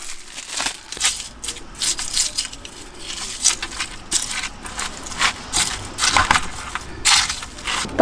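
Wooden chopsticks stirring and mixing a plastic bowl of mulhoe with slushy, partly melted ice: an irregular run of crunching, crackling scrapes. The chopsticks' wrapper rustles as they are unwrapped at the start.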